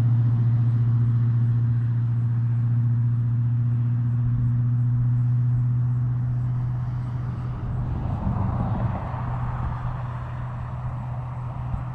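A motor vehicle's engine running with a steady low hum, which eases off and fades over the last few seconds.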